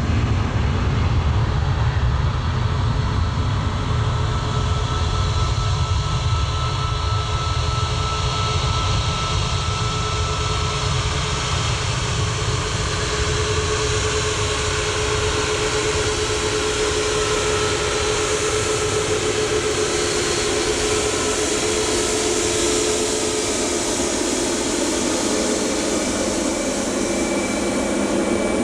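Boeing 737 MAX 8's CFM LEAP-1B turbofan engines running at taxi power: a steady jet rumble and hiss with thin whining tones that come and go. The low rumble is heaviest in the first half and eases later on.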